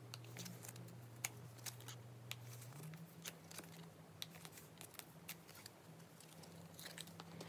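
Faint, scattered clicks and soft rustling of photocards being handled and slid into plastic nine-pocket binder sleeves.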